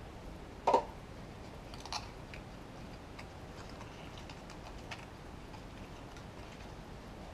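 A sharp thump a little under a second in and a softer knock near two seconds. Then the light crinkling and clicking of a small cardboard vacuum-tube box being handled and opened.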